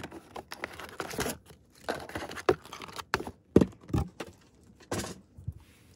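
Packaged merchandise rustling and crinkling as it is lifted out of a cardboard box, with irregular light taps and two louder knocks about three and a half to four seconds in.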